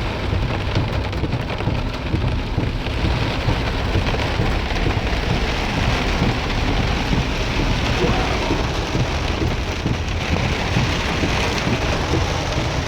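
Heavy rain falling as a steady hiss, over the low rumble of a pickup truck driving.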